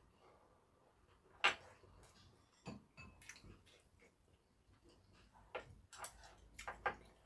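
Faint eating sounds at a table: scattered sharp clicks of a metal spoon and chopsticks against ceramic bowls, the loudest about one and a half seconds in and a quick cluster near the end.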